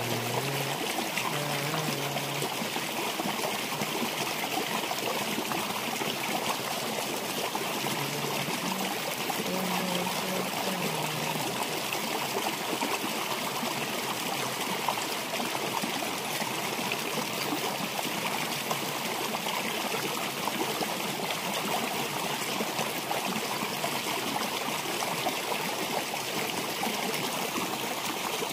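Shallow rocky stream flowing, a steady rush and trickle of water running over stones.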